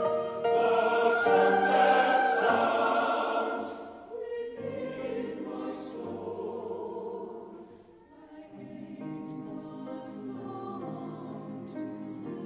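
Mixed choir singing a spiritual, loud and full for about the first four seconds, then dropping to a soft, sustained passage.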